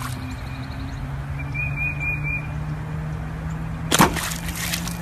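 A dog wading in lake water dunks its head under with one short splash about four seconds in, over a steady low hum.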